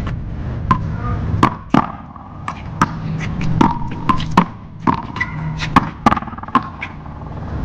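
One-wall paddleball rally: the rubber ball smacked by paddles and slapping off the wall, an irregular run of a dozen or more sharp cracks.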